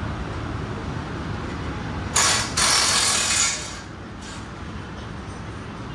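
Two loud bursts of a power tool in a workshop, a short one about two seconds in and then one lasting about a second, over a steady low rumble of shop noise.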